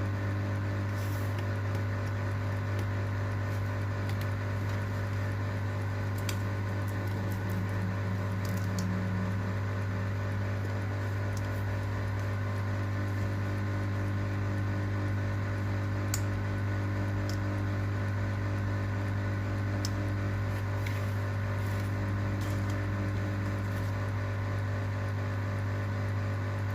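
Steady electrical hum, constant throughout, with a few faint clicks scattered through it.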